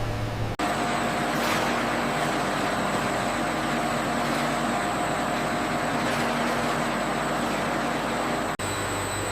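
Steady factory machinery noise: an even hiss with faint humming tones in it. It starts suddenly about half a second in and cuts off suddenly near the end.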